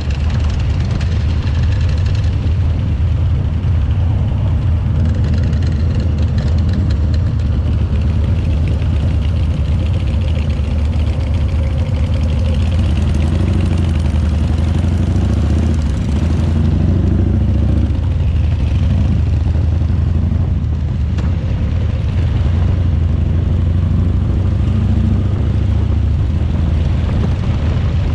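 Harley-Davidson V-twin motorcycle engine running steadily on the move, a constant low rumble under a rush of wind noise.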